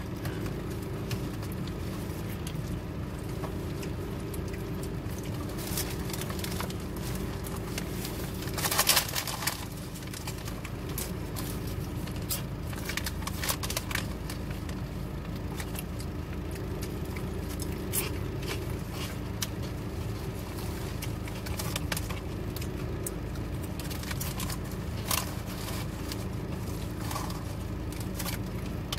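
A person eating a sandwich: chewing and small crackles and scrapes of the food and its wrapping in the hands, over a steady low hum inside a car cabin. A louder crackling burst comes about nine seconds in.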